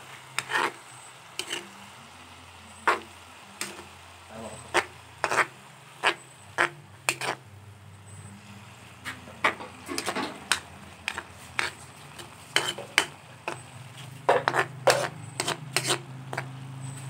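Metal spatula scraping and knocking against an aluminium wok as banana-heart adobo is stirred: sharp, irregular strokes, one or two a second, over a low steady hum.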